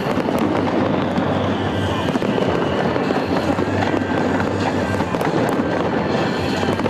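Fireworks display crackling and popping densely and without let-up, with music playing underneath.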